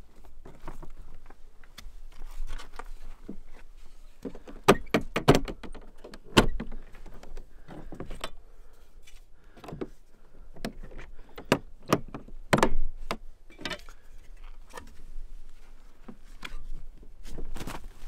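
Hard plastic Pelican cargo case on a roof rack being unlatched, opened, rummaged in and shut: a run of sharp clicks and knocks from the latches, lid and gear inside. The loudest knocks come about a third of the way in and again about two-thirds in.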